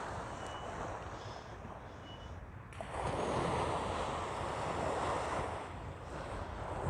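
Sea surf washing onto the beach, swelling loud about three seconds in and easing again, with wind rumbling on the microphone.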